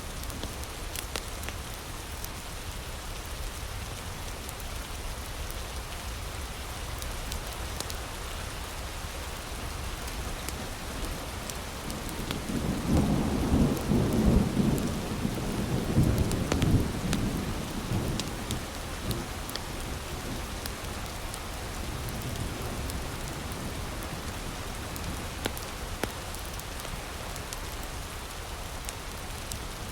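Heavy rain falling steadily, with scattered sharp crackles of a wood fire. About halfway through, a low roll of thunder swells and fades over about six seconds.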